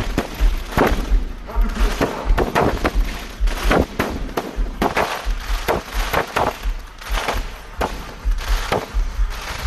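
Fireworks going off: a steady, irregular run of sharp bangs, one or two a second and sometimes in quick clusters, over a deep low thumping.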